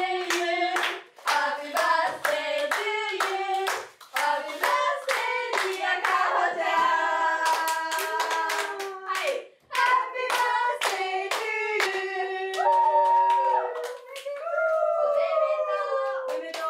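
A voice singing a melody, accompanied by hand claps keeping a steady beat of about two claps a second; the clapping drops away for a few seconds near the end while the singing slides in pitch.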